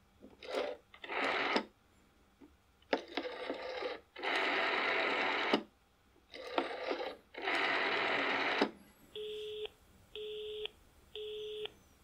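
A rotary telephone dial is wound and let go several times. Each release gives a click and a whirr of the dial running back, some short and some over a second long. Then a beeping tone comes on about once a second: the on-off busy signal of the telephone line.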